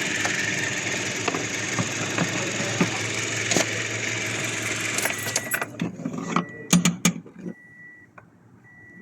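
Toyota Hiace engine running steadily, then cutting off about five and a half seconds in. A few sharp clicks and knocks follow, then a run of evenly spaced short electronic beeps.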